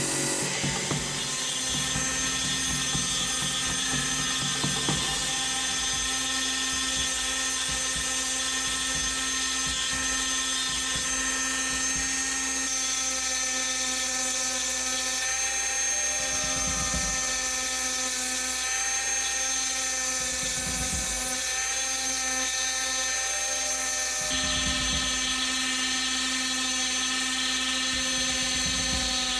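Handheld rotary tool running with a steady high-pitched whine, its small bit grinding into the steel of a hatchet head; the pitch steps up slightly partway through. In the first second a bench wheel grinds against the steel.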